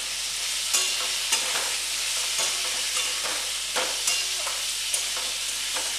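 Diced pumpkin and potato sizzling in mustard oil in a kadai, with a steady hiss, while being stirred: short scrapes and taps against the pan about once a second.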